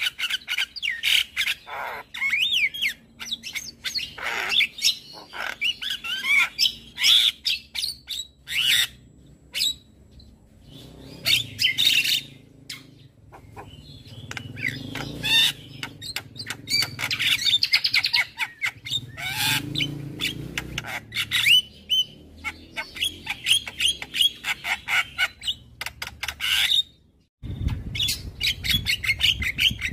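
Javan myna (jalak kebo) in full song: a fast, varied run of chirps, whistles, harsh squawks and clicks. The song breaks off for a moment near the end and then resumes over a low rumble.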